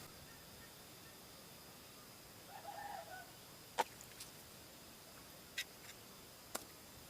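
A chicken clucking faintly, one short call about two and a half seconds in, with a few sharp clicks after it and a steady faint high insect whine.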